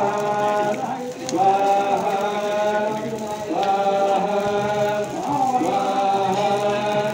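Voices chanting together in long held notes, phrase after phrase, a new phrase starting every two seconds or so, over a steady low drone.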